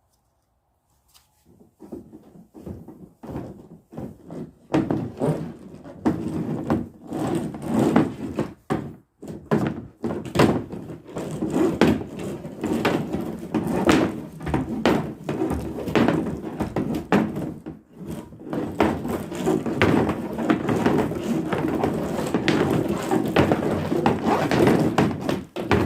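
Dense, irregular knocking and clattering of hard objects, starting after a second or two of silence and keeping on.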